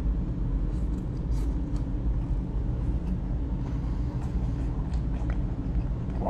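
A person chewing a mouthful of food with faint soft clicks, over a steady low rumble of background noise.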